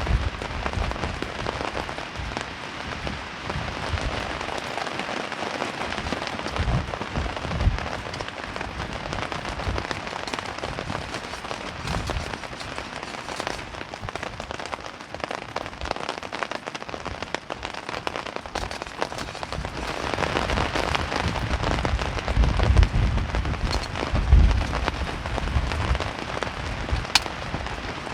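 Heavy rain pattering steadily, with low gusts of wind rumbling in that grow stronger about twenty seconds in.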